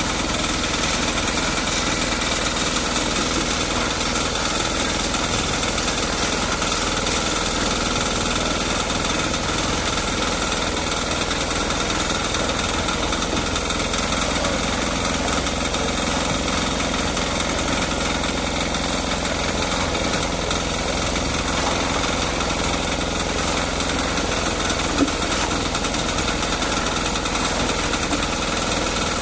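Small engine of a portable drum concrete mixer running steadily under load.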